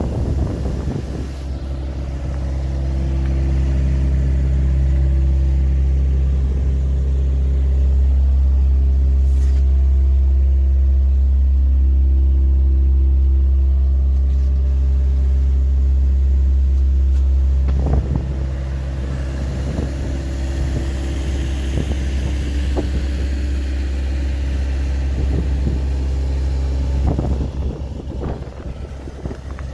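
Diesel engine of a 2008 Neuson 50Z3 RD mini excavator running steadily, a little louder in the first half and easing off about 18 seconds in, with a few sharp knocks along the way.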